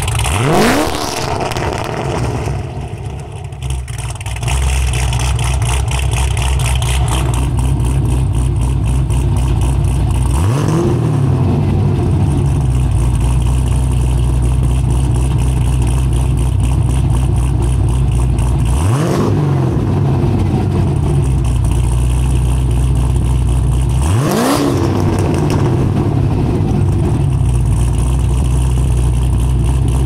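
Cadillac CTS-V V8 idling through a Valvetronic valved muffler, heard from outside the car. It is blipped four times to about 4,500 rpm, each time a quick rise in pitch and a fall back to idle. The first blip is with the exhaust valve open; the other three, about ten, nineteen and twenty-four seconds in, are with the valves closed.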